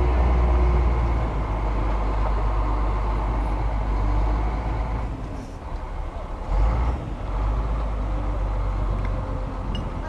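Heavy diesel engine of a mobile crane truck running steadily with a deep low rumble, with a brief low bump about two-thirds of the way through.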